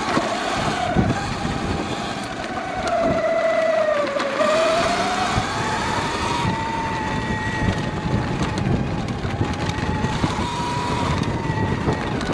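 Sur Ron Light Bee X electric dirt bike's motor whining under load on a dirt trail climb. Its pitch sinks to a low point about four seconds in and rises again as the bike slows and picks up speed. A steady rushing noise with scattered knocks from the rough ground sits underneath.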